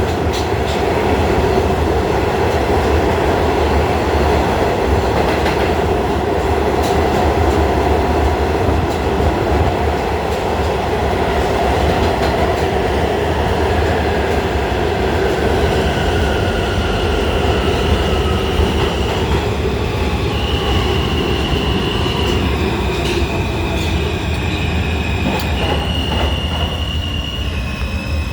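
New York subway train running, heard from inside the car: a steady rumble of wheels on rail. About halfway through, a whine falls in pitch. Then the wheels squeal in high, steady tones that step between pitches.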